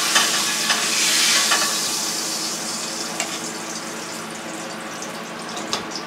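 Hot oil sizzling in a frying pan as fried porgy fish is lifted out, the sizzle fading over the first few seconds. A few short scrapes and taps of a metal spatula against the pan come through it.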